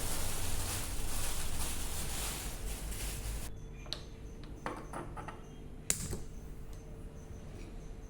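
Food sizzling in a pan, which cuts off suddenly about three and a half seconds in. A few light clicks and clatters of kitchen utensils follow over a faint steady hum.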